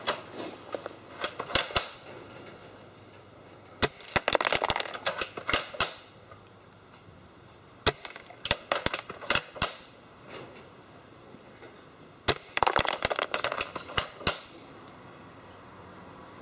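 Double Eagle M57 spring-powered bolt-action BB rifle fired three times, about four seconds apart, through a chronograph. Each sharp shot is followed by a second or two of clicking and rattling as the bolt is worked to re-cock the spring.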